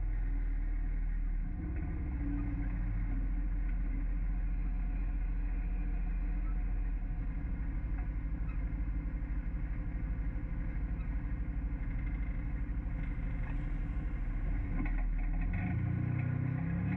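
Four-seat UTV's engine running steadily on the move, a deep low drone, with a few short knocks near the end.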